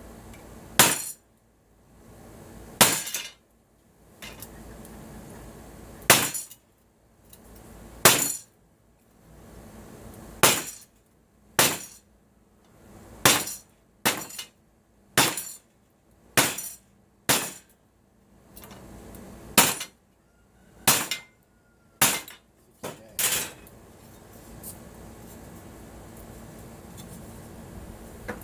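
A hammer striking aluminum brace stock to shape it: about sixteen sharp, ringing blows, irregularly spaced a second or two apart, stopping a few seconds before the end.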